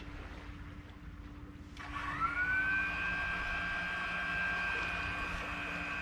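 A small motor whine starts about two seconds in, rises in pitch quickly, then holds steady for about four seconds and cuts off sharply.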